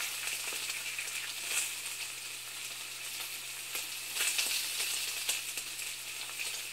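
Steady crackling hiss with scattered pops, over a faint steady low hum.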